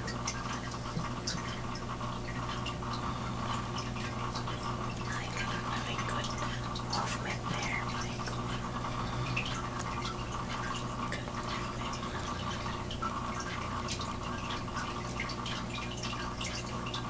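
Faint water trickling and dripping over a steady low hum.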